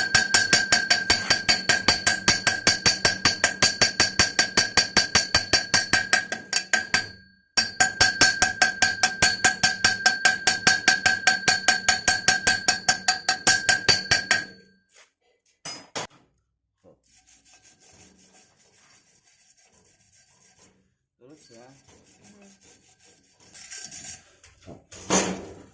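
Rapid rhythmic scraping strokes on a welded galvanized steel pipe, about five a second, each stroke setting the pipe ringing. They pause briefly about seven seconds in and stop about fourteen and a half seconds in. After that come a few faint knocks and one louder knock near the end.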